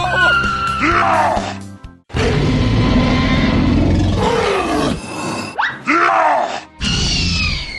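Background music mixed with cartoon-style sound effects: several swooping pitch glides, mostly falling, with a sharp rising one near the end. The sound cuts out briefly about two seconds in.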